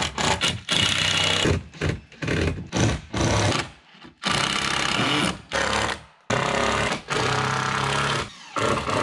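Cordless impact driver sinking screws into a wooden frame, running in several bursts of one to two seconds each with short pauses between.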